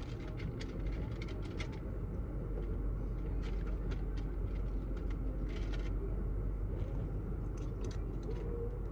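Scattered light clicks and taps of a small LED bulb and plastic dome-light fixture being handled as a wrong-size bulb is tried in the socket and will not fit, over a steady low rumble.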